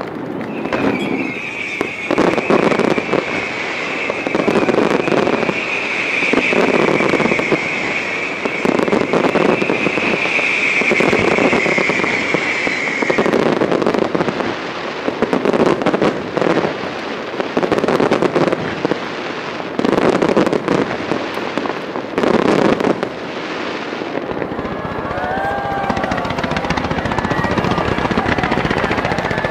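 Starmine fireworks going off in quick volleys, a loud bang every second or two. A steady high whistle runs over the first half.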